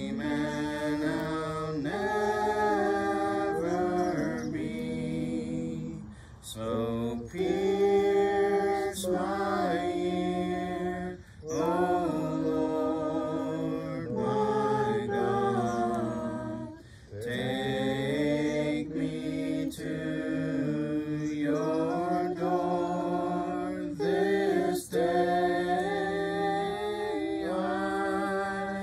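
A small group of voices singing a slow worship song unaccompanied, in long held phrases with short breaks between them.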